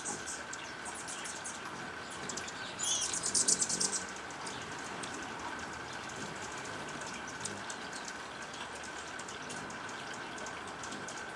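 Anna's hummingbird calling with rapid, very high chattering chips in short bursts, loudest about three seconds in. A steady faint high tone and hiss run underneath.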